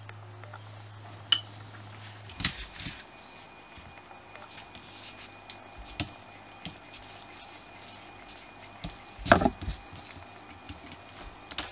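Scattered metallic clicks, clinks and knocks from a Honda CB125S carburettor's parts and needle-nose pliers being handled on a table as the carb is dismantled. The loudest is a short cluster of knocks about three quarters of the way through.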